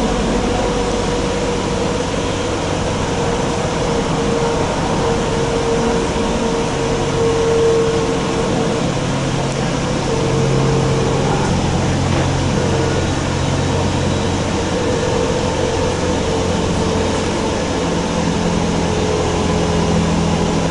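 Cabin noise of a Kinkisharyo light rail car running on track: a steady rumble with humming tones from the electric drive that shift in pitch now and then.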